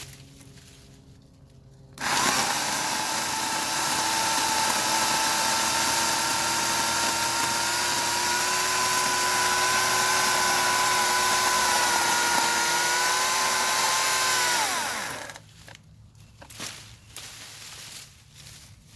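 Portland 14-inch electric chainsaw switched on abruptly about two seconds in, its motor running with a steady whine while cutting branches, then winding down with a falling pitch near the end after about twelve seconds.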